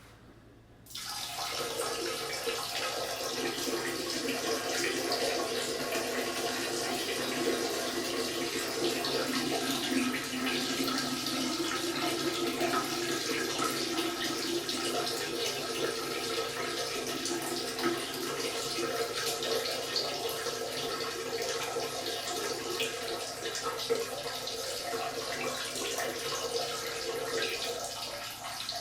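A man's urine stream splashing steadily into the water of a toilet bowl, starting suddenly about a second in and easing slightly near the end.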